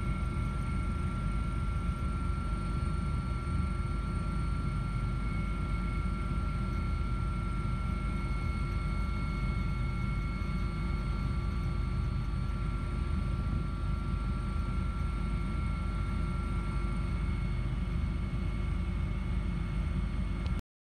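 Small multirotor drone in flight, its propellers giving a steady high whine over a low rumble of wind on the microphone. The sound cuts off suddenly near the end.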